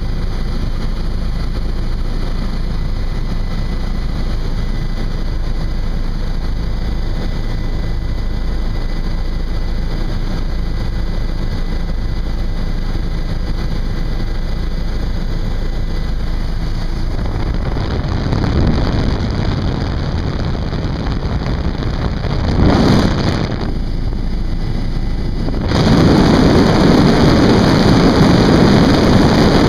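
Helicopter cabin noise: the steady drone of the engine and rotor. In the second half a rushing wind noise swells briefly about two-thirds of the way in, then grows louder and stays for the last few seconds.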